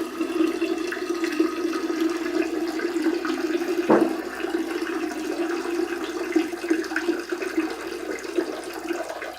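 Water running steadily with an even hum, starting and stopping abruptly, and a short downward-sliding note about four seconds in.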